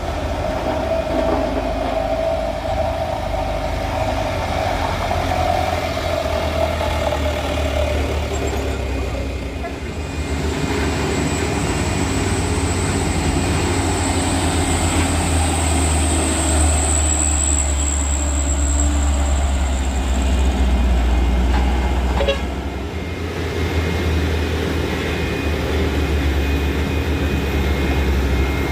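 Heavy diesel trucks running low and steady as they climb a steep hill, with a high thin whine for several seconds in the middle.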